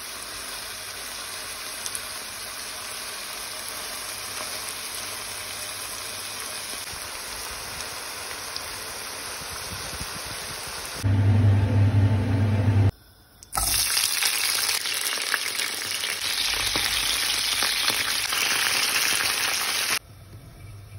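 Beef cubes and sliced onions sizzling steadily in a nonstick frying pan. A little past halfway, a loud low hum lasts about two seconds, then after a brief gap a louder, brighter sizzle takes over until just before the end.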